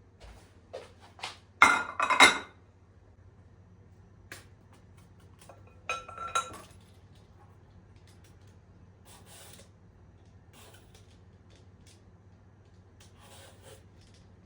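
Dishes clinking: hard crockery or glass knocked and set down, with short ringing tones. There are two loud clusters, one about two seconds in and one about six seconds in, followed by faint handling sounds.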